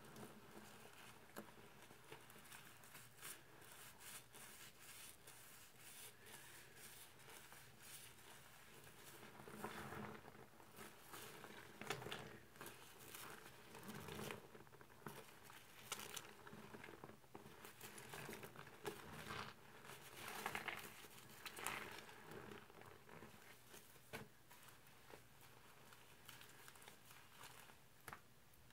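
Rubber-gloved hands squeezing a car sponge in thick laundry-detergent suds: faint, steady crackling of popping foam with wet squelches, and louder squeezes every few seconds.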